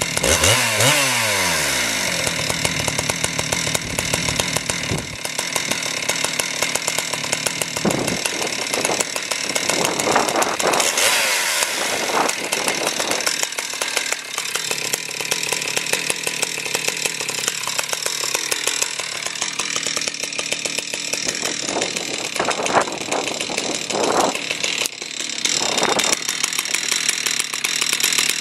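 Husqvarna 372XP X-Torq two-stroke chainsaw running and revved up from idle several times, its pitch sweeping up steeply in the first two seconds.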